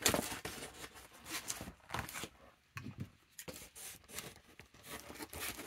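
Rustling, crinkling and tearing of a cardboard mailer as it is pulled open by hand and cut with scissors, in short irregular scrapes and crackles.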